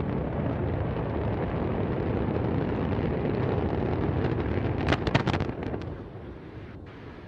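Antares rocket exploding over its launch pad: a steady deep rumble of fire and blast, with a burst of sharp cracks about five seconds in, after which the rumble fades.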